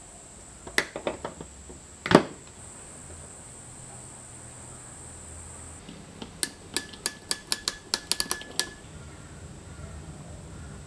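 Cutters clicking onto a 12 V compressor power cable, then snipping through it with one loud snap about two seconds in. Later a ratchet crimping tool clicks about a dozen times in quick succession as it crimps an Anderson plug contact onto the wire.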